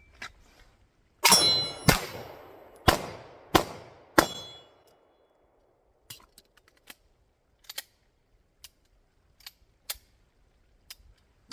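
Five pistol shots fired in quick succession over about three seconds, with steel target plates ringing after the hits. Faint scattered clicks follow.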